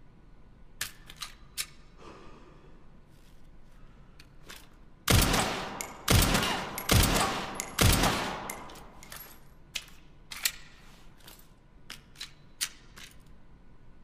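Four gunshots from a SIG Sauer P320 handgun, about a second apart, each trailing off in a decaying echo. Sharp, lighter clicks come before and after the shots.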